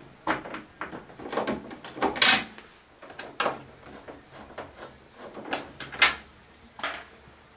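Hand screwdriver turning out the screws of an Electrolux dryer's lint trap cover: irregular clicks and short scrapes of the driver in the screw heads, with a longer rasp about two seconds in.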